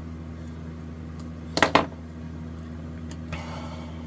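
Small wired guitar parts and wire being handled on a copper-foil-shielded control plate: two quick, sharp clicks about a second and a half in and a soft rustle later, over a steady low electrical hum.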